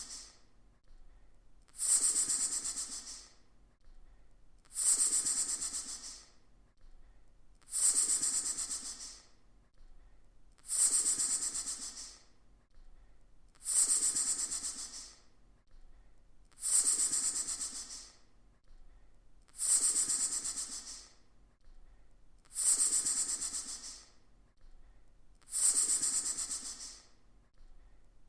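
Snake hissing, repeated evenly about every three seconds: each hiss starts sharply, is high-pitched, and fades out over a little more than a second.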